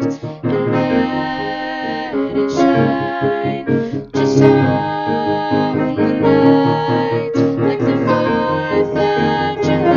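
Soprano and alto voices singing together in harmony over piano accompaniment, with held notes and short breaks between phrases.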